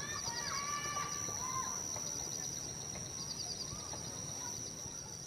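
Outdoor nature ambience: birds calling in short gliding phrases, several in the first two seconds and a few fainter ones later, over a steady high-pitched whine and repeated trains of quick, high chirps.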